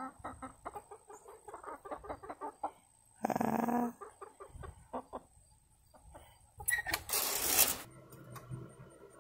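Chickens clucking in quick, short notes, with one longer drawn-out call about three seconds in. Near the end comes a loud, brief burst of rushing noise.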